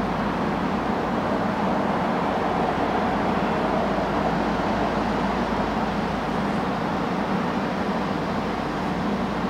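Steady, unbroken engine drone from a towboat pushing loaded barges up the river.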